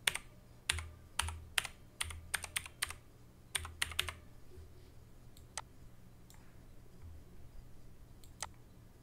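Keystrokes on a computer keyboard: quick, irregular runs of typing for the first four seconds, then a few single key clicks.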